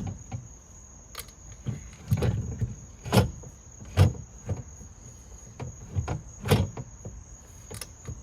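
Irregular knocks and clunks of a MINI Cooper rear window regulator and its parts being worked into place inside the door, about a dozen in all, the loudest about three, four and six and a half seconds in.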